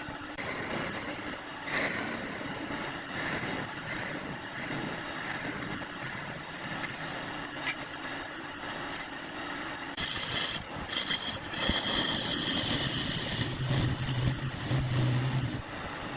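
Wood lathe running with a steady mechanical noise. About ten seconds in, a sharper, higher-pitched stretch comes in, then a low hum.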